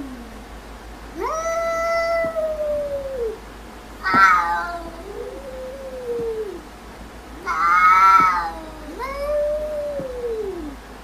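A cat yowling: a string of long, drawn-out meows, each rising and then falling in pitch, with shorter, harsher and louder cries about four and eight seconds in.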